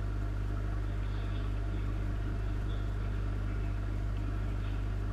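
Steady low electrical hum of aquarium equipment: the air pump running the tank's sponge filters.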